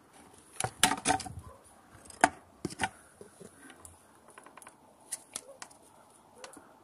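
A run of sharp clicks and knocks: a tight cluster in the first second and a half, two or three louder single knocks between two and three seconds in, then a few fainter ticks about five seconds in.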